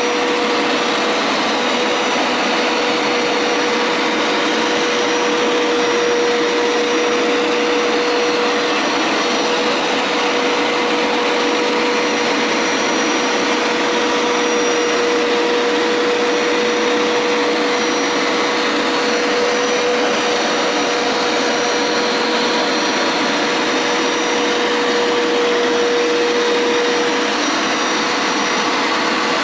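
Hoover Power Scrub carpet washer running steadily on a rinsing pass over carpet: a constant motor noise with one steady held tone through it.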